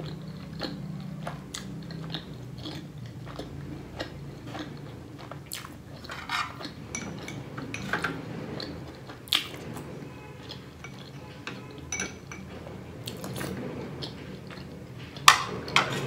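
Close-up chewing and mouth sounds of someone eating momos, with a spoon clinking and scraping against a bowl and plate. Scattered short clicks, a few sharper ones standing out about nine seconds in and near the end.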